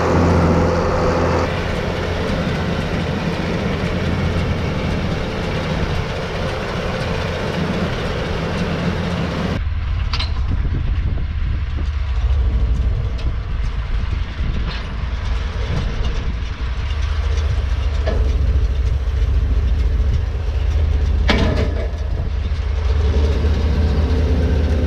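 A vehicle engine runs steadily with a low rumble. About ten seconds in, the sound changes abruptly and loses its hiss, and a few sharp clicks follow.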